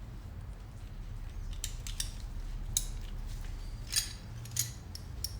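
A handful of light metallic clicks and clinks, spread irregularly, as two open-end wrenches work against a seized lock nut on a brake-rod heim joint. A low steady hum runs underneath.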